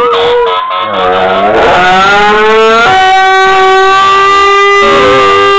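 Fire truck siren sounding loudly, settling into a long steady tone held for several seconds, with a giant schnauzer howling along to it.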